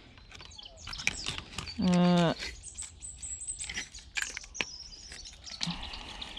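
Light clicks and taps of small circuit boards being handled, with a brief voiced 'hmm' about two seconds in. Faint high bird chirps sound in the background.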